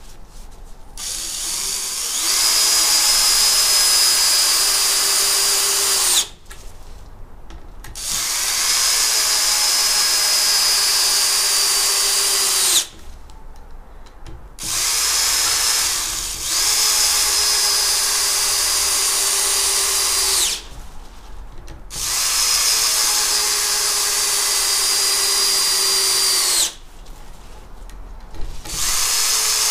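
Bosch GSB 180-Li (GSB 18V-21) 18 V cordless drill driver in first speed driving 5 × 70 mm wood screws into wood, one screw after another. Each run lasts about four to six seconds, and the motor's whine drops in pitch as the screw seats before it stops. Short pauses fall between screws.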